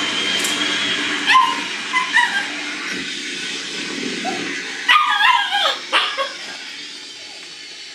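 Shiba Inu puppies whimpering and yipping: a few short high yelps in the first couple of seconds, then a quick cluster of sharper yips about five seconds in.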